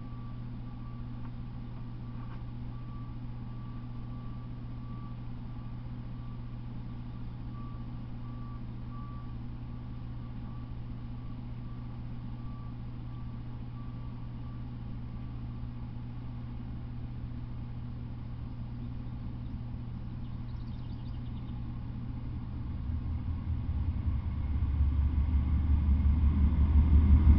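A steady low hum with a faint, broken high beeping tone over it. In the last five seconds a deep, pulsing rumble swells and becomes loud.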